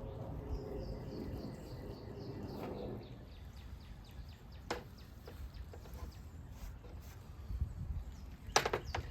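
Light clicks and knocks of wood shavings and sticks being handled for a fire, with a sharper cluster of knocks near the end. A bird's falling trill of high chirps in the first few seconds, over a steady low outdoor rumble.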